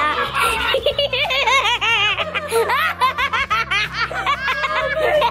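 A young girl laughing hard in a rapid run of short, high-pitched peals, starting about a second in.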